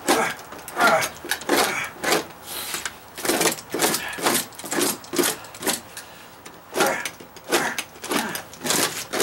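A sheetrock knife cutting and scraping away dry-rotted OSB plywood in quick, rough strokes, about two a second, with a short pause a little past halfway.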